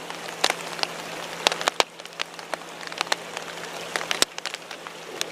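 Steady rain, with heavy drops hitting close by in sharp, irregular taps over an even hiss.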